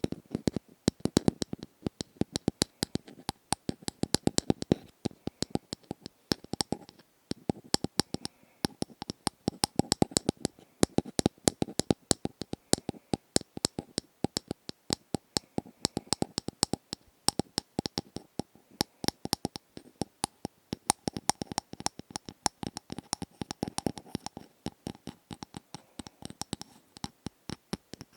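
Rapid light ASMR tapping and clicking, several sharp taps a second in uneven bursts.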